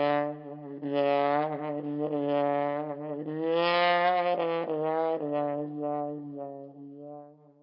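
Closing music: a single wind-instrument melody over a steady low drone, the notes changing with quick breaks between them, fading out near the end.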